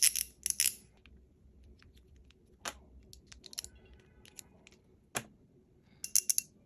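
A fidget slider toy being handled, giving small sharp clicks: quick runs of rapid clicking at the start and again near the end, with single louder clicks and faint ticks in between.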